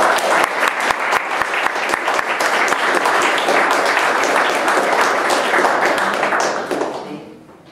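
Audience applauding: dense clapping that starts all at once and dies away about seven seconds in.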